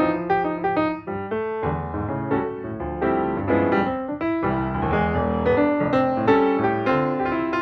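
Background piano music: a light, busy melody of quickly played notes.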